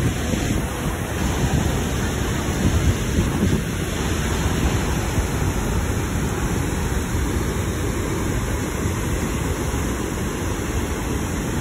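Steady rush of a waterfall plunging into a narrow rock canyon, with some wind buffeting the microphone.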